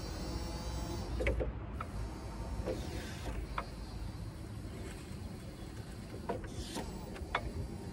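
Still RX 60-30 L electric forklift working its hydraulics as the integrated sideshifter moves the raised fork carriage side to side: scattered clicks and creaks from the carriage and mast over a low steady noise.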